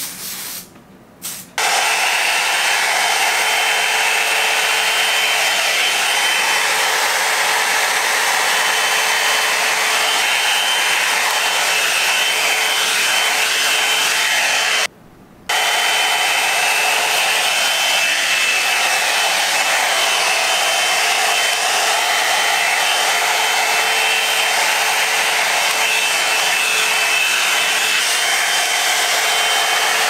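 Drybar Double Shot Oval blow-dryer brush running with a steady whir of its fan and blown air as it is drawn through a section of hair. It comes on about a second and a half in and cuts out briefly about halfway.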